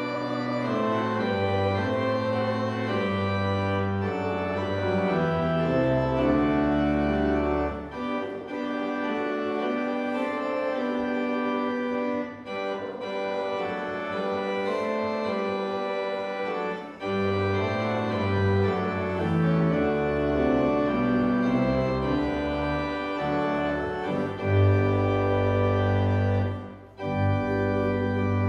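Organ playing sustained chords in slow phrases, with a few short breaks between phrases.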